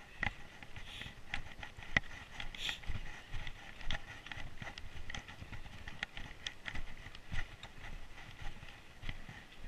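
Footsteps crunching on packed snow as a hiker walks along a winter trail, a run of short, uneven crunches at walking pace.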